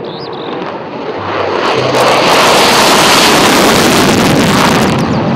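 F-16 fighter jet taking off: loud jet engine noise that builds over the first two seconds as it rolls and lifts off, stays strong through the middle and eases off near the end.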